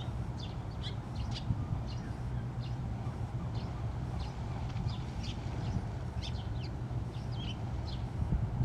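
Small birds chirping, short high chirps coming irregularly several times a second, over a steady low rumble.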